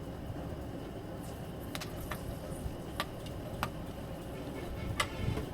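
Whole spices (cinnamon, cardamom and cloves) frying in hot oil in a frying pan, giving a handful of short sharp pops over a low steady background.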